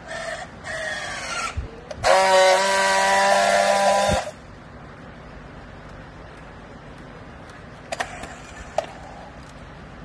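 Battery-powered handheld strapping tool on plastic strap: its motor whines up in pitch twice as it tensions the strap, then runs with a loud steady buzz for about two seconds as it friction-welds the strap joint. Two sharp clicks follow a few seconds later.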